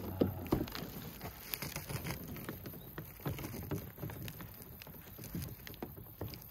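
Stiff plastic hull sheet of a Tucktec folding kayak being bent and hooked together by hand: irregular small clicks, taps and scrapes of the plastic and its fittings, with a louder knock just after the start.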